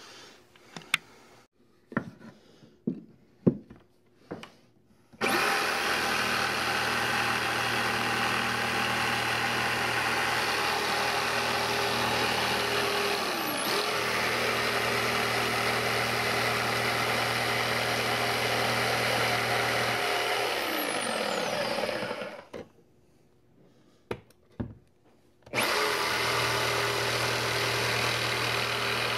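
Corded Bosch jigsaw cutting a slot in plywood. A few knocks and clicks as it is set on the work, then the saw runs steadily for about seventeen seconds with a brief dip midway, winds down with a falling pitch, and after a short pause with a few clicks starts cutting again near the end.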